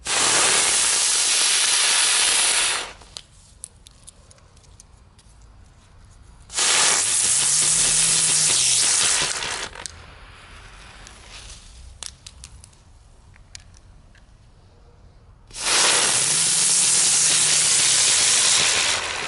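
Keller Brummkreisel ground spinner fireworks firing one after another: three loud hissing bursts of about three seconds each. The second and third carry a faint low hum that rises and falls in pitch. Small crackles sound between the bursts.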